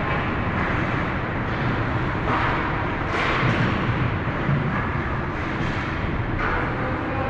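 Ice rink ambience during a hockey game: a steady wash of noise, with skate blades scraping the ice in a few short hisses, around two and three seconds in and again near the end.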